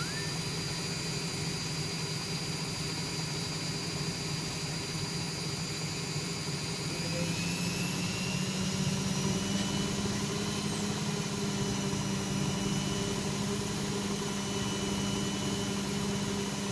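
Servis Sapphire 6055 washing machine spinning at high speed, the drum and motor giving a steady hum with a whine above it. About seven seconds in the pitch rises and it gets a little louder as the spin speeds up.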